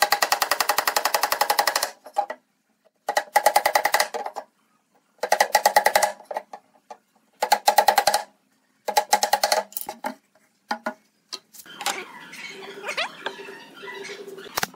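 Claw hammer tapping rapidly on the nailed top panel of a hollow wooden box, in five bursts of about ten quick, ringing strikes a second, each burst a second or two long. Near the end comes a softer scraping and rustling.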